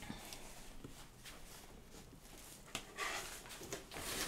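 Quiet room with faint handling noises: a few soft rustles and knocks about three seconds in.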